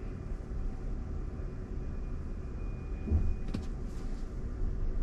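Road and tyre rumble inside the cabin of a moving electric Waymo Jaguar I-Pace. About three seconds in come a low thump and a sharp click, which the rider takes for a crunch, as if the car ran over something like a bottle.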